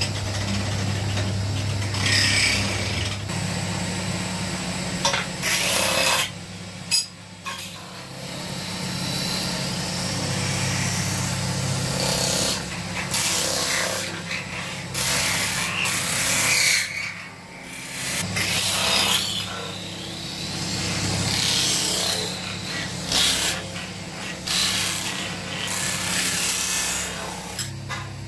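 Metal-spinning lathe running with a steady hum while a hand-held steel tool scrapes and presses against a copper goblet blank turning on the mandrel, the rasping rising and falling in strokes of a few seconds.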